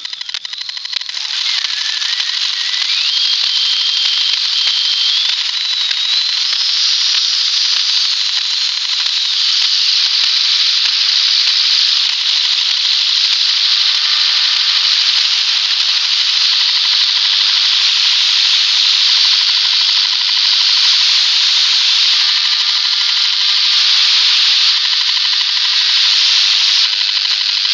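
Audio output of a homemade RC-tuned regenerative long-wave receiver: a loud, steady hiss of receiver noise. In the first several seconds a thin whistle climbs in pitch in steps as the tuning knob is turned.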